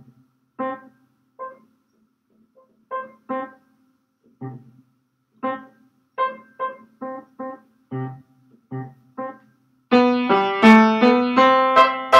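Upright piano playing a simple tune: short, detached single notes with gaps between them, then from about ten seconds in a louder, quicker passage of held notes that ring together.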